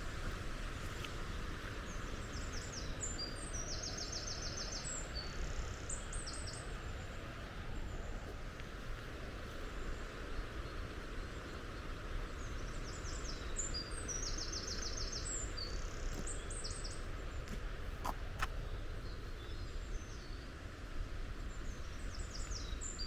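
A small songbird sings the same short phrase of high trills twice, about ten seconds apart, with a fainter bit of song near the end, over a steady background rush. A few light clicks come about three-quarters of the way through.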